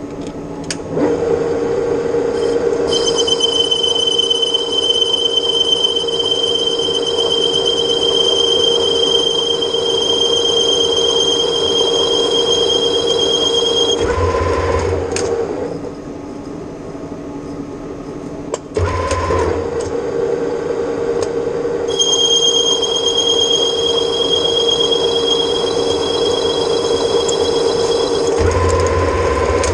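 Metal lathe turning stainless steel: a steady machine hum with a high whistling whine from the cut during two passes of about ten seconds each, with a short break between them.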